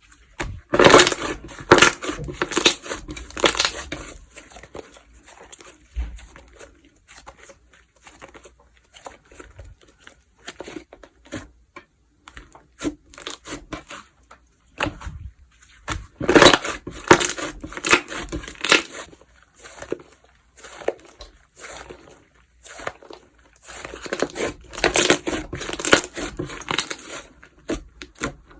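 Slime being squeezed, pressed and stretched by hand, giving crunchy crackling and popping in three loud spells, with softer squishing and clicks between them.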